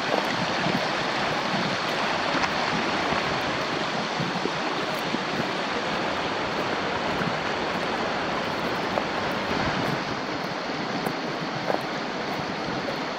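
Steady rushing of a gorge stream, a little quieter after about ten seconds.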